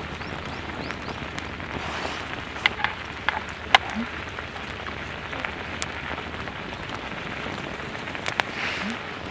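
Wood campfire burning with a steady crackling hiss and a handful of sharp pops, the loudest about four seconds in.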